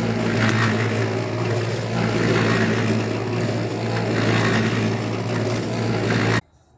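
Cement mixer running with a steady mechanical hum while it mixes concrete. The sound cuts off abruptly near the end.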